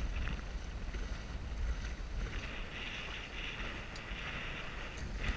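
Wind buffeting the microphone and water washing past the hull of a Lightning sailboat under way, with a brighter hiss rising for a second or so in the middle.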